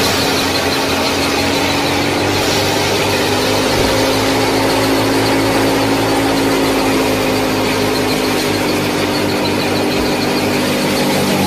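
The small motor of a miniature model tractor and thresher running steadily: a continuous whine over an even hiss.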